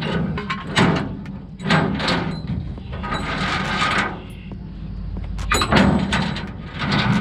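Scattered metallic clicks and knocks as the car's wheel tie-down is worked loose on the trailer deck, with voices talking and a steady low hum underneath.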